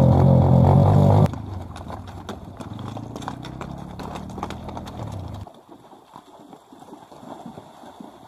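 Music for about the first second, cutting off abruptly. Then horses' hooves clopping on a rocky riverbed, over a low engine hum that stops about five seconds in.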